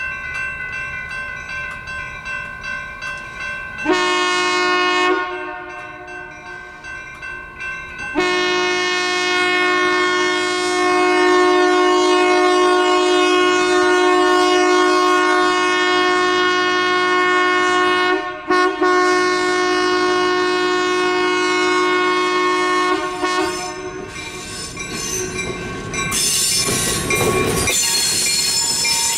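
Diesel locomotive air horn sounding at a grade crossing: a short blast about four seconds in, then a long blast held for about fifteen seconds with one brief break. The crossing's warning bell rings at about two strokes a second before it. Near the end the diesel switcher passes close, its engine and wheels loud on the rails.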